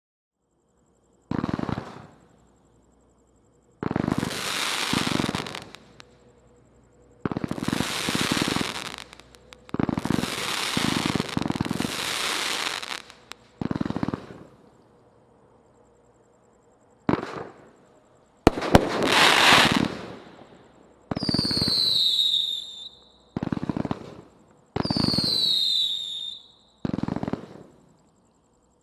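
A 500-gram, 204-shot consumer firework cake firing in about ten separate volleys of rapid launch thumps and bursts, each followed by a short pause. Twice in the later half, whistles sweeping down in pitch ride over the shots.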